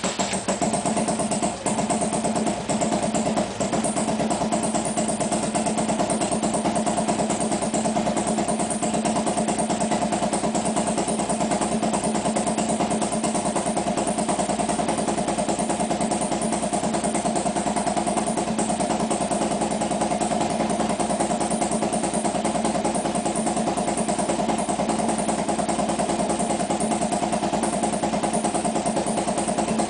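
Harley-Davidson V-twin engine running at idle after a hard start. It stumbles unevenly for the first couple of seconds, then settles into a steady idle as it warms up.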